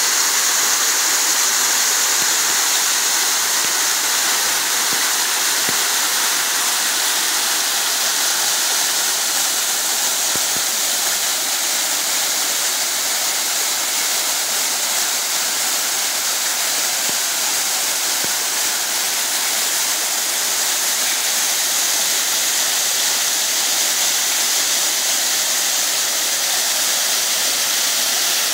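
Small waterfall spilling over stepped rock ledges into a creek pool: a steady rushing hiss of falling water.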